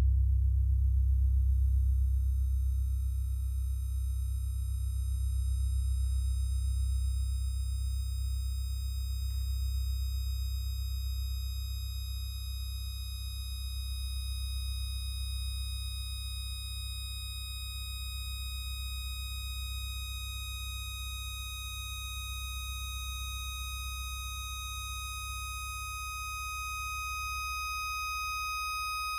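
Contemporary music for chamber ensemble and electronics: a deep sustained drone that slowly fades, under a high, pure sustained tone with overtones that grows louder toward the end.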